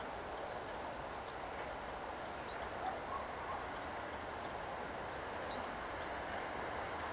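A distant train approaching along an electrified line: a steady rail rumble that grows slightly louder towards the end. Faint short bird chirps sound now and then above it.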